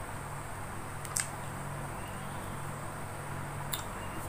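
Eating by hand: two quick sharp clicks about a second in and another near the end, over a steady low hum, hiss and a faint high whine.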